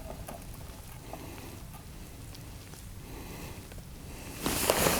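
Faint steady outdoor background with a few light ticks, then about four and a half seconds in, loud crunching footsteps on snow-covered ice begin.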